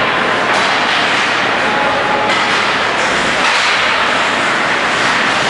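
Steady scraping rush of hockey skates on the ice of an arena rink, with a few sharp knocks about half a second, two and a quarter and three and a half seconds in.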